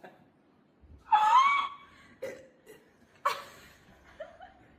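A person laughing in two short bursts, the first about a second in with a rising pitch, the second a sudden one about three seconds in.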